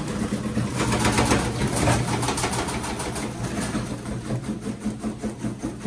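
Washing machine on its spin cycle with a bulky comforter inside, running loud with a steady hum and a regular pulsing beat that eases off and becomes more separate as the drum slows.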